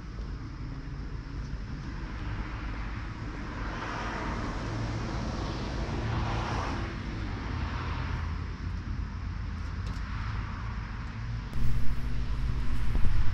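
Outdoor ambience of distant road traffic: a steady low rumble with passing vehicles swelling and fading about four and six seconds in. Near the end the noise suddenly gets louder and rougher.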